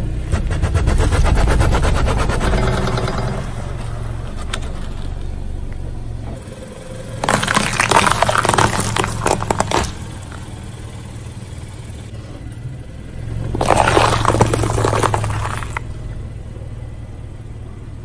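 A car creeping forward with its engine running low as a tyre rolls onto soft foods and vegetables and crushes them. Crackling and squishing in the first few seconds, then two louder bursts of crunching and splitting, about two to three seconds each: one about a third of the way in, another about three quarters through.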